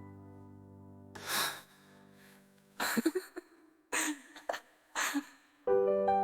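Song breakdown: a held keyboard chord fades out, then about four short breathy vocal gasps sound with pauses between them. Piano chords come back in near the end.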